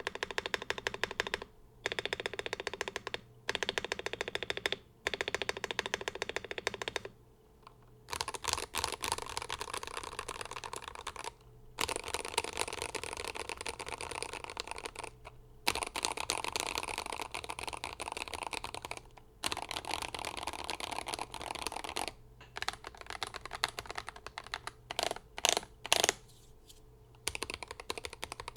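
Glorious GMMK 3 HE 75% keyboard being typed on fast, its hand-lubed Fox Red Hall-effect magnetic switches, tape mod and full foam giving a dense run of keystrokes. The typing comes in bursts of a few seconds with short pauses between. Near the end the strokes thin out, with a few louder single presses.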